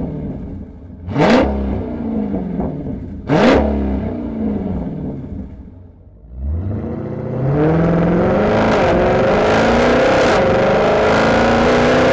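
Dodge Challenger 392's 6.4-litre HEMI V8 through a Magnaflow xMOD exhaust in its Extreme Delete straight-pipe setup, blipped twice so the revs jump and fall back. About halfway through it accelerates with a rising note, then holds a loud, steady exhaust note under way, its pitch slowly climbing.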